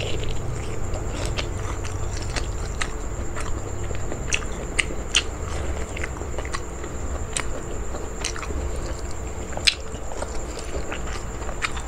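Close-up chewing and biting of soft boiled banana heart, with many short, wet mouth clicks and smacks at irregular intervals.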